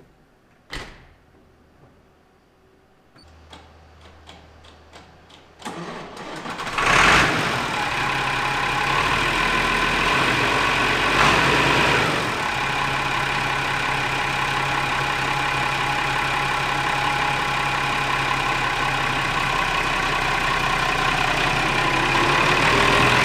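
A few clicks, then a tractor engine cranking over and catching after about a second and a half, settling into a steady idle with one brief rev. It starts on a battery left isolated for about three weeks.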